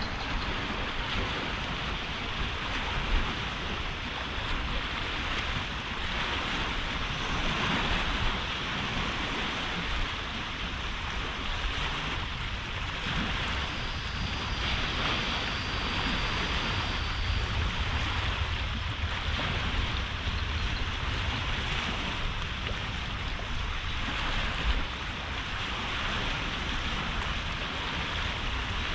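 Steady rushing of wind on the microphone and small waves washing at the river bank, with a low rumble underneath and two light knocks, one about three seconds in and one near the end.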